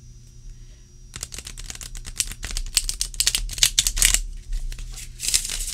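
A new Robin Wood tarot deck being riffle-shuffled: a rapid flutter of card edges flicking past each other, starting about a second in and lasting some three seconds, then a second short burst near the end. The stiff new cards come off in chunks rather than one by one.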